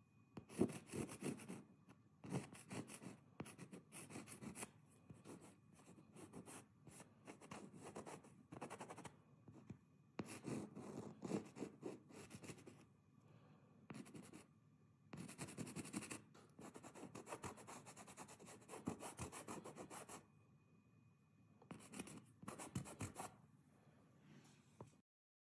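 A stick of white chalk scratching and rubbing across a painted canvas in quick runs of short strokes, with pauses between the runs.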